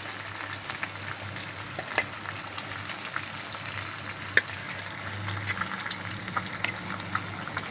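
Beef T-bone steak frying gently on low heat in olive oil and melting butter, a steady sizzle with scattered small crackles and pops over a low hum. A sharp click about four seconds in.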